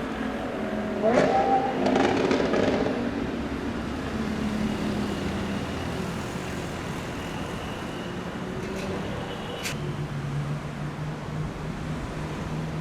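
Sports car engine revving up sharply about a second in, then settling into a steady low-rev drone.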